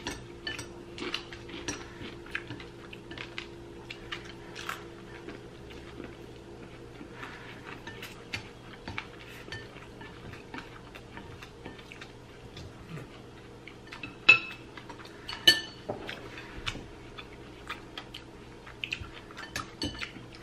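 Chopsticks, metal spoons and a fork clicking and clinking against ceramic bowls while two people eat, in irregular light taps. Two sharper clinks stand out about two-thirds of the way through.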